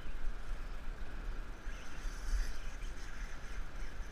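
Surf washing against the rocks with wind buffeting the microphone: a steady hiss over an uneven low rumble.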